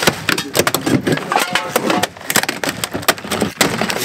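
Plastic interior door trim of a Lincoln LS being pried and ripped off: a quick, irregular run of cracks, snaps and knocks as the panel and its clips break loose.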